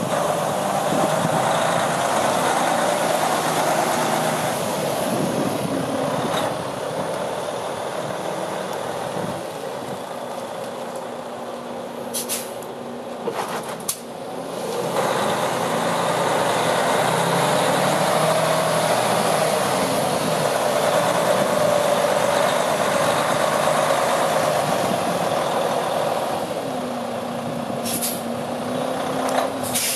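Freightliner Cascadia day-cab tractor's diesel engine running, its pitch shifting a little, with short hisses of air from the air brake system a couple of times around the middle and again near the end.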